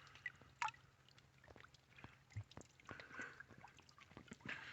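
Shallow creek water faintly splashing and trickling, with a few light clicks and knocks scattered through.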